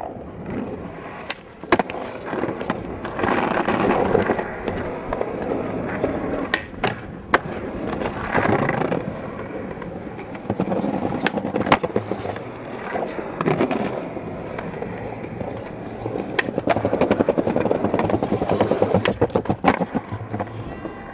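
Skateboard wheels rolling on smooth concrete, the noise swelling and fading as the board speeds up and slows, with several sharp clacks of the board popping and landing.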